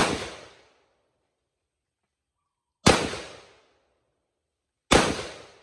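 Three single rifle shots from an AR-style rifle, fired one at a time with uneven gaps: one at the very start, one about three seconds in and one about five seconds in. Each report rings out and fades over about half a second.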